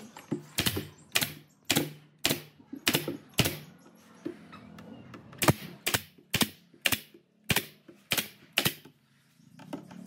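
Pneumatic nail gun firing nails into a wooden frame: about a dozen sharp shots, each with a brief hiss of air, roughly two a second, with a pause of about a second and a half in the middle.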